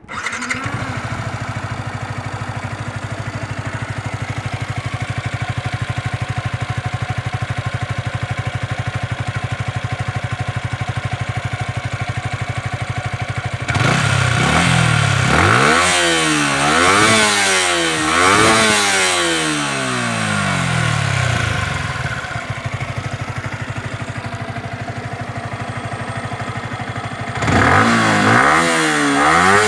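Yamaha R15 V3's single-cylinder engine through its stock exhaust, idling steadily, then revved in a series of quick blips about halfway through. It settles back to idle and is revved again near the end.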